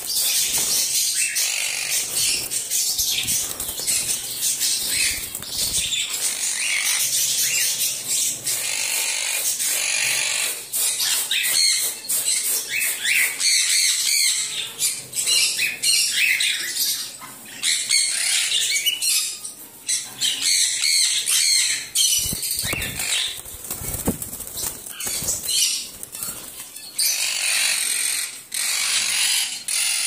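Caged parakeets chattering: a dense, high-pitched stream of chirps and scratchy calls that keeps going, briefly thinning twice in the second half.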